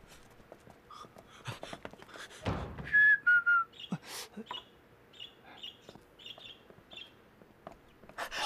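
Caged songbirds calling: two clear whistled notes about three seconds in, the second a step lower, then a run of short high chirps. Before them come a few scuffing footsteps and a thud.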